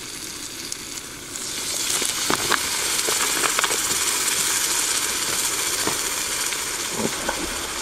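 Bacon and two eggs sizzling in a Captain Stag folding frying pan over a camping gas stove, with scattered crackles and pops. The sizzling gets louder about a second in.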